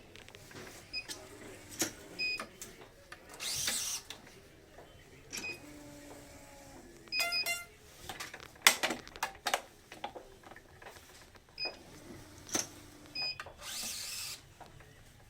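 Badminton racket being strung on a stringing machine: scattered clicks and clacks of the clamps and tensioner, a few short high pings, and two brief rasps of string being pulled through, about ten seconds apart.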